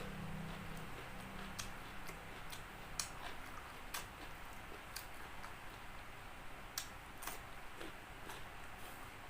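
Close-miked chewing of crispy fried chicken: irregular crunchy clicks and crackles of the breaded coating and wet mouth sounds, about one to two a second.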